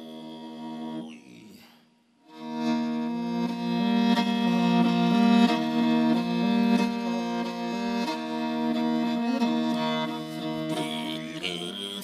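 Morin khuur (Mongolian horsehead fiddle) played with a bow: a melody of stepping, sliding notes starting after a brief pause about two seconds in. At the start a held throat-sung drone with a high whistling overtone fades out, and the overtone whistle comes back near the end over the fiddle.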